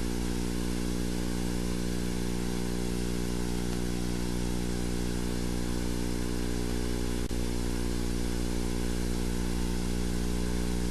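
A steady low hum with an even hiss over it, unchanging throughout, with one faint click about seven seconds in.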